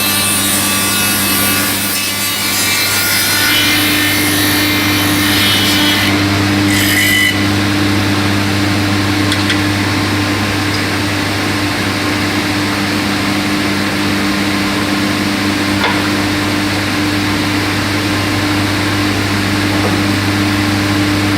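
Woodworking machine running with a steady motor hum, cutting wood for about the first seven seconds, then running on with no cut.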